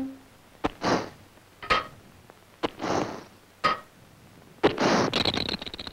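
Cartoon sound effects of a frozen cast-iron radiator coming to life: five sharp metallic clinks about a second apart, each followed by a short hissing puff, then a longer hiss with a high whistle beginning near the end.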